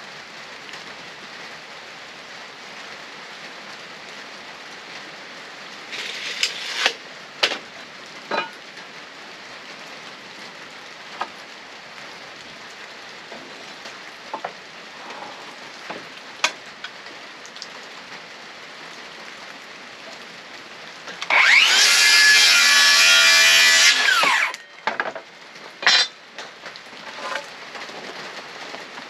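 Power saw cutting a wooden board: the motor spins up, cuts for about three seconds, and winds down, about three-quarters of the way in. Steady rain hiss underneath, with a few sharp knocks of wood.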